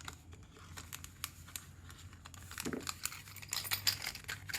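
Small scattered clicks and crinkly rustling as a Master Lock padlock is handled, busier near the end.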